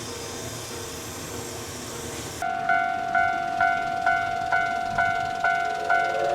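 A steady hiss of steam, then, about two seconds in, a Japanese level-crossing alarm starts up: an electronic bell ringing its repeated 'kan-kan' chime about twice a second as the crossing warns of the approaching steam train.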